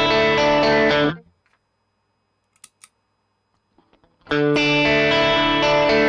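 Electric guitar played through an MXR Carbon Copy analog delay pedal: a held chord rings and is cut off about a second in, then after a pause with a few faint clicks a second chord starts about four seconds in and rings on. The pedal is switched on, its LED lit, by the second chord.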